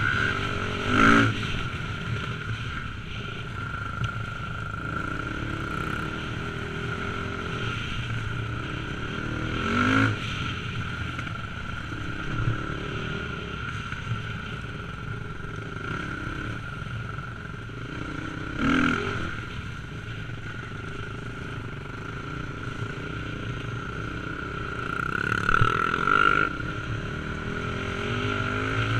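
Dirt bike engine running while being ridden over a rough, muddy track, heard from the rider's helmet. The throttle is opened briefly four times, and the revs rise each time.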